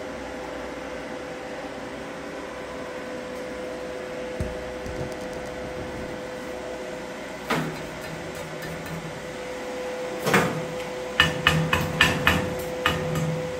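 Welder's chipping hammer striking a fresh stick-weld bead on a steel plate to knock off the slag. There is one knock about seven seconds in and a louder one about ten seconds in, then sharp metallic strikes about three a second near the end, over a steady hum.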